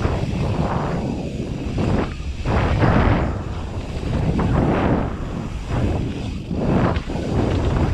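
Wind rushing over the microphone of a bike-mounted camera as a mountain bike descends a dirt forest trail, with the rumble of its tyres rolling over dirt and leaves. The noise swells and dips every second or so.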